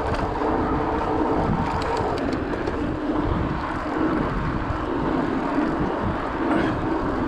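Wind rushing over the microphone with the rolling noise of a mountain bike riding along.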